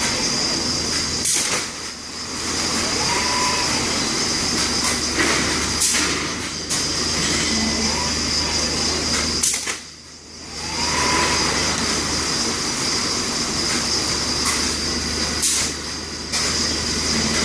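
Fanuc 420iF palletizing robot at work over a steady industrial hum. The servo drives whine up and fall in pitch as the arm swings, and there are four sharp clicks a few seconds apart. The hum drops out briefly about ten seconds in.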